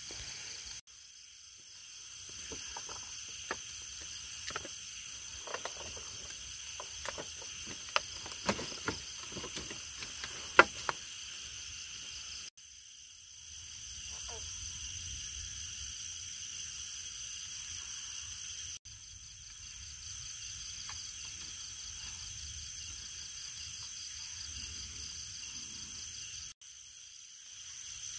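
Steady night chorus of insects and frogs in a forest, in high-pitched layered trilling. A run of sharp clicks comes through in the first half, the loudest about ten and a half seconds in, and the chorus cuts out abruptly and resumes three or four times.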